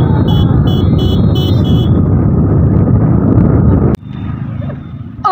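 Motorcycle riding along a road: engine and heavy wind rush on the microphone, with a quick run of short high beeps, about three a second, in the first two seconds. About four seconds in it cuts off abruptly to a much quieter street background.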